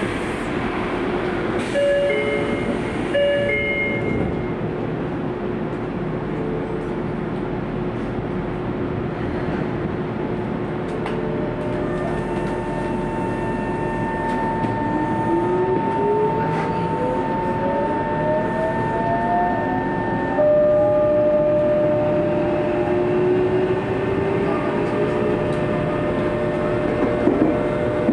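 Tokyo Metro 03 series electric train with four-quadrant chopper control starting from a station: steady electrical tones from the chopper equipment, then from about halfway on the traction motor whine rises steadily in pitch as the train accelerates, with the chopper tone stepping down about two-thirds of the way in. A few short electronic tones sound early on.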